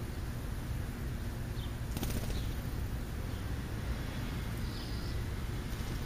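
Steady low outdoor rumble with a few faint, short high bird calls, and a brief flutter of wings about two seconds in.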